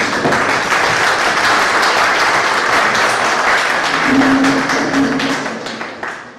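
Audience applauding: many hands clapping at once, dying away near the end.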